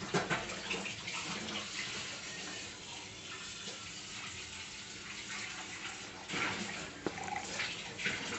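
Milk pouring from a carton into a plastic blender jar, a steady splashing stream. A sharp knock comes just at the start and a lighter one about seven seconds in.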